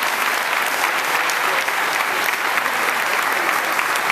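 Crowd applauding steadily: many hands clapping at once in a dense, unbroken wash of claps.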